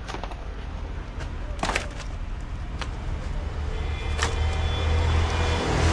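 A steady low engine hum, like a motor idling, with a few sharp clicks and knocks over it, the loudest a little under two seconds in.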